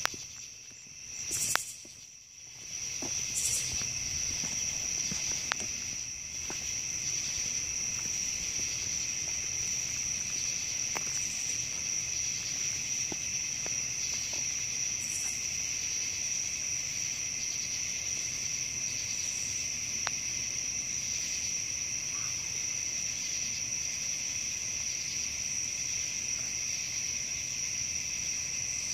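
Steady chorus of night insects, a dense high trill in two pitch bands, faint for the first couple of seconds and then even throughout, with a few faint clicks.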